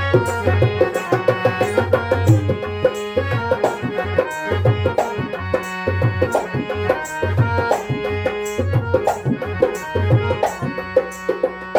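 Instrumental interlude of a Garhwali folk song: harmonium playing a held, reedy melody over a dholak beating a steady rhythm.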